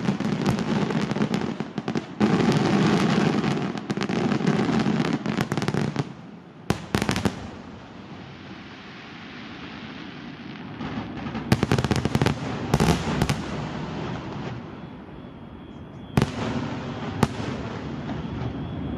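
Aerial fireworks going off: a dense barrage of rapid bangs and crackling that stops about six seconds in, followed by a lower rumble with a few scattered clusters of sharp bangs.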